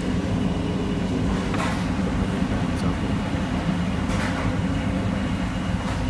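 Fagor FI-80E commercial dishwasher running: a steady low mechanical hum and rumble, with two brief faint hisses about a second and a half and four seconds in.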